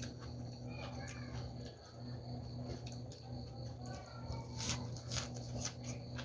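Close chewing and crunching of fresh vegetables and papaya salad, with a few sharp crunches between about four and a half and six seconds in, over a steady electrical hum. Faint short animal calls sound in the background.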